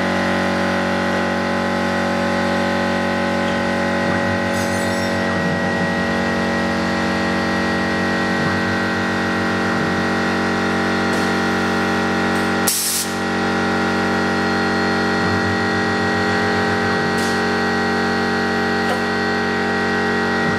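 Skyfire SVM2 CNC mill running with a steady whine, with two spells of rhythmic buzzing from the axis or tool-changer motors. About 13 seconds in there is a short, loud blast of air, typical of the pneumatic drawbar releasing a BT30 tool during an automatic tool change. Fainter short hisses come a few other times.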